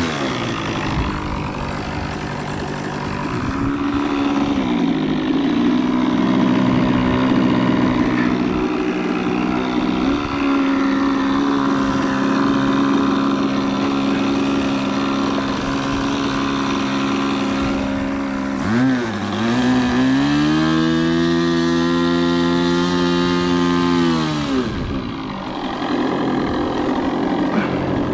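Nitro glow engine of a Hobbico NexStar model airplane running on the ground just after starting: low idle with a brief dip in speed a few seconds in. About two-thirds of the way through it is throttled up to a higher, steady pitch for about five seconds, then dropped back to idle.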